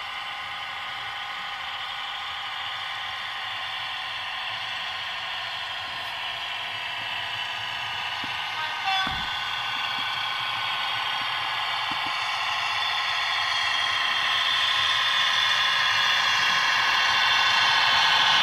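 Howes sound decoder in a Bachmann OO gauge Class 150 diesel multiple unit model playing a recorded Class 150 diesel engine through its small speaker as the model pulls away, growing louder as it approaches, with the engine note climbing near the end. A short sharp knock about nine seconds in.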